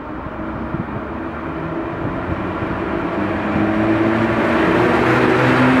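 EU07 electric locomotive pulling a passenger train away and approaching: a steady hum of motors with several low tones that step in pitch, under growing wheel-on-rail rumble, getting steadily louder as it comes closer.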